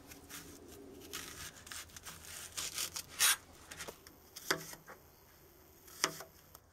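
Chef's knife slicing through a white onion on a plastic cutting board, with the blade sawing through the flesh and knocking sharply against the board several times, loudest about halfway through.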